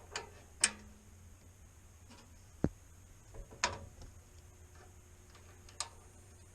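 Five sharp, scattered clicks and knocks from a furnace control board and its wiring being worked on, over a low hum. The loudest come a little under a second in and near three seconds. The tech suspects a bad inducer-motor relay or a loose board connection.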